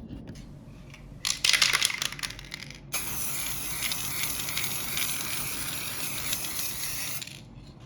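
Aerosol can of clear coat shaken, the mixing ball rattling for about a second and a half, then a steady spray hiss for about four seconds that cuts off.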